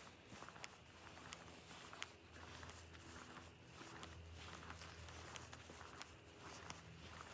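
Footsteps of a walker on a forest trail, at a steady pace of about three steps every two seconds, with a faint low steady hum underneath.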